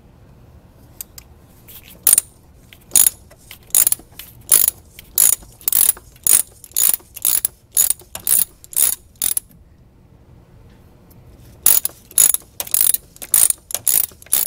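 Socket ratchet clicking in quick strokes, about two a second, as it unscrews an oil filter housing cap with a 36 mm socket. There is a run of about a dozen strokes, a pause of about two seconds, then about six more.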